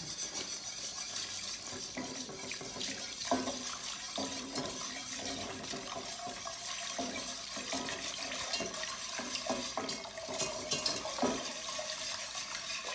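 Warm milk pouring from a glass measuring cup into a pot, a steady splashing hiss, while a wire whisk clicks and scrapes against the pot, whisking the milk into a roux for a white sauce.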